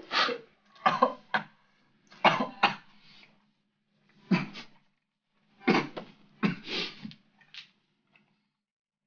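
A man in a coughing fit while eating: about nine hard coughs in clusters, fading away near the end. He fights to keep the mouthful in while coughing.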